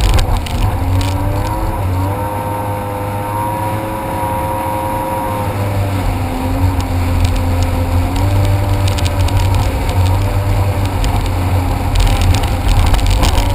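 Jet ski engine running steadily under way, its pitch shifting slightly up and down a few times, over a heavy low rumble.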